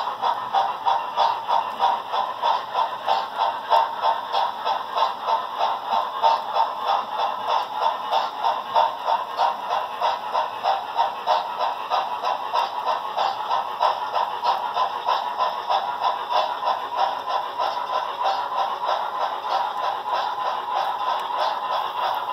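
Model passenger train rolling past with a steady rhythmic clatter of about three beats a second, which evens out near the end.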